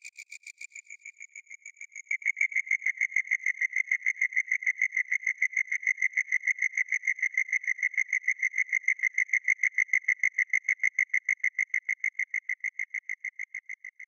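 Synthesized cricket chirp from a hybrid FM, ring-modulation and wavetable Native Instruments Absynth patch: a fast, even train of chirp pulses, about six a second, with a strong main tone and a fainter much higher one. A grainier layer drops out about a second in, and about two seconds in the chirping gets louder.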